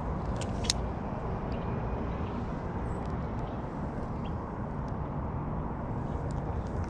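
Steady low outdoor rumble, with two sharp clicks in the first second.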